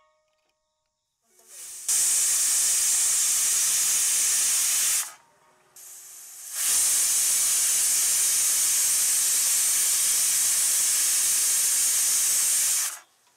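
Hawkins pressure cooker whistling: steam hisses out past the weight valve in two long blasts. The first lasts about three seconds; after a brief pause the second lasts about six. Each starts quickly and cuts off suddenly. The cooker has come up to full pressure.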